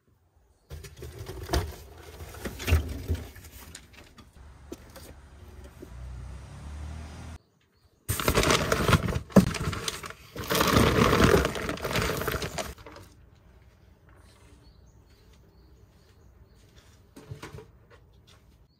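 Rustling and flapping of bags, blankets and boxes being handled, with a few sharp knocks. It comes in short stretches broken by abrupt cuts and is loudest in the middle, then goes quiet apart from one faint knock near the end.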